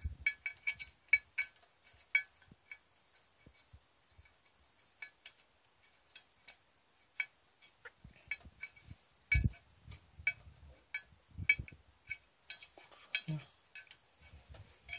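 Light metallic clicks and clinks of small steel parts against the aluminium valve body of a Mercedes 722.6 automatic transmission being taken apart by hand. They come in irregular runs, busiest near the start and near the end, with a few duller knocks in between.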